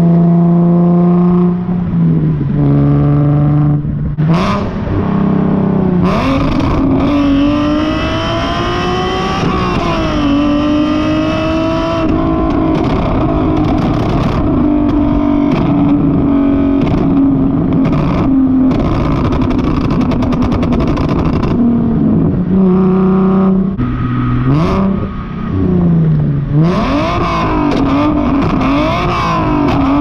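Nissan 370Z's V6 heard at the tailpipe through an aftermarket exhaust while driving. The note climbs under throttle and drops at each gear change, holds a steady cruising drone through the middle, then dips and climbs again near the end.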